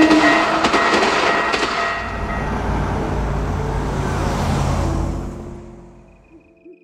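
A train passing at speed: a loud rushing rush with a few sharp clacks about a second in and a low rumble that fades out near the end. Steady held tones sound over it for the first couple of seconds.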